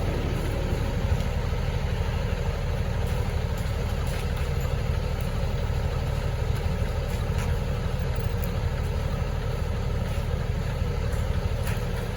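A vehicle's engine running with a steady low rumble, most likely the delivery truck.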